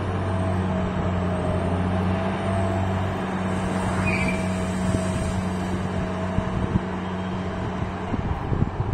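Engine of a ship-mounted lattice-boom grab crane running steadily with an even low hum, with a few short knocks near the end.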